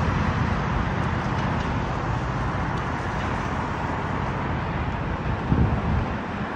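Steady street traffic noise, a continuous rumble and rush of passing vehicles that eases off slightly toward the end.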